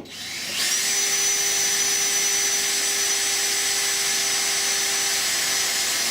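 Power drill with a 2.5 mm metal drill bit boring a pilot hole through a uPVC door frame and the steel reinforcement inside it. The motor spins up with a rising whine over the first half second, then runs at a steady high pitch.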